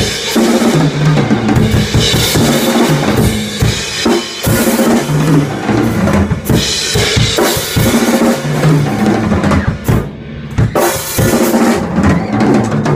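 A drum kit played in a continuous groove: kick, snare and pitched tom hits under a wash of cymbals, with a brief lull about ten seconds in.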